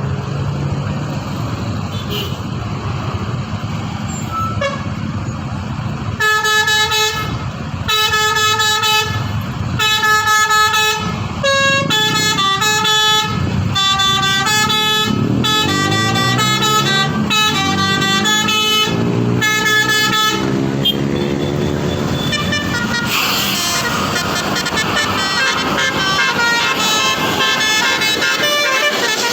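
Indonesian bus 'telolet' horn: a multi-note air horn playing a short tune of repeated stepped tones, starting about six seconds in and running on for some fifteen seconds over the running bus engine and street noise.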